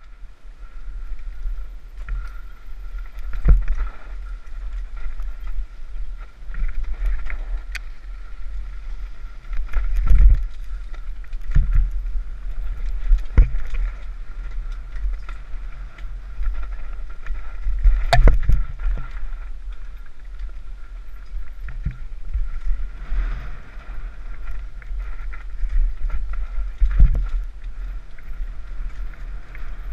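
Mountain bike running fast downhill: wind rushing steadily over the microphone with tyre noise, broken by several sharp knocks and rattles as the bike hits bumps on the trail, the loudest about eighteen seconds in.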